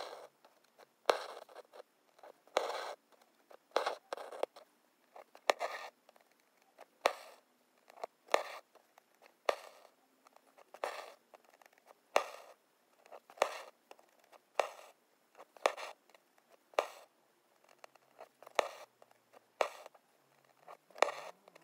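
Hand-embroidery needle piercing fabric stretched taut in an embroidery hoop and black thread being drawn through: a sharp pop followed by a short scratchy rasp, repeating about once every second and a quarter.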